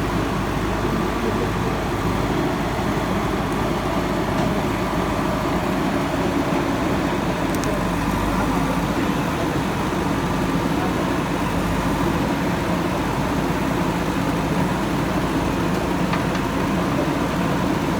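Diesel engine of a JCB backhoe loader running steadily under work.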